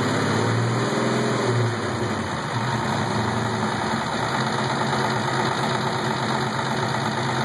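Turbocharged 2000 Ford Mustang GT's 4.6-litre two-valve modular V8 idling steadily with bad valvetrain noise, which the owner suspects is the lifters.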